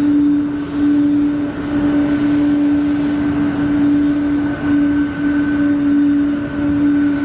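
Boeing 777-200 airliner's jet engines running at taxi idle as it rolls past: a steady, loud hum with one held tone over a haze of engine noise.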